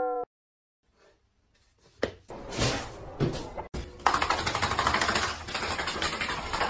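A music tail cuts off, and after a couple of seconds of silence a few scuffs follow. From about four seconds in, a dog moving about frantically on a rug over a wood floor makes a fast, rhythmic scratching and rustling noise.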